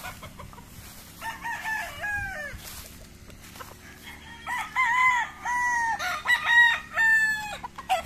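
Gamecocks crowing. One crow comes about a second in, then a louder, longer crow runs through the second half.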